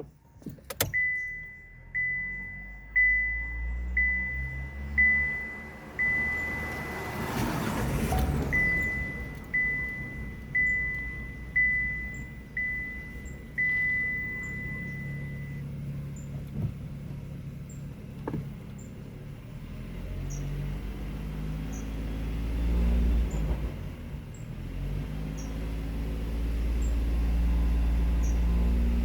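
Chevrolet Onix 1.0 naturally aspirated three-cylinder engine running with a low drone that grows stronger in the last third. For about the first fifteen seconds a short high in-car warning chime sounds about once a second, and there is a brief rush of noise around eight seconds.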